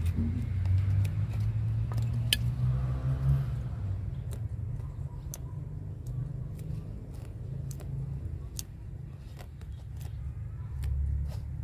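Hand pruning shears snipping roots at the base of a bonsai tree: a string of short, sharp clicks, over a steady low rumble.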